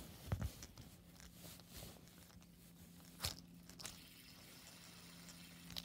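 Faint handling noise: fingers and a plastic LED fidget spinner rubbing and tapping against bedding, with a couple of sharp clicks, over a faint steady low hum from about a second in.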